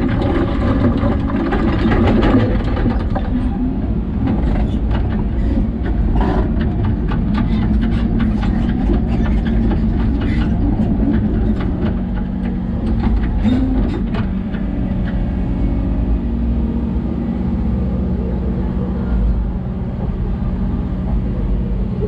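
Hidromek excavator's diesel engine running steadily under work, heard from inside the operator's cab, with scattered sharp clicks and knocks.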